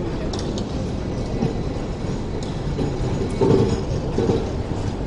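Hong Kong double-decker tram running past on street track: steel wheels rumble along the rails, with a few louder clacks and knocks about three and a half to four seconds in.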